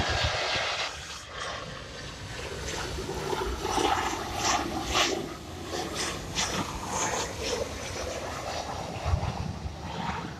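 Twin-jet airliner on final approach passing low overhead, its engines making a steady rushing jet noise. Gusts of wind buffet the microphone.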